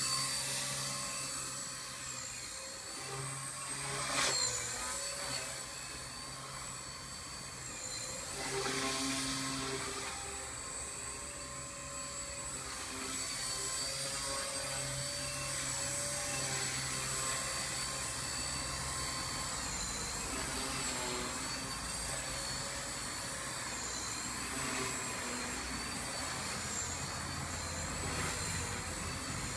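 Align T-Rex 250 DFC electric RC helicopter in flight: a steady high whine from its electric motor and spinning rotors. The pitch dips and recovers briefly several times, about four seconds in, around eight seconds, and again later, as the throttle and collective pitch change during manoeuvres.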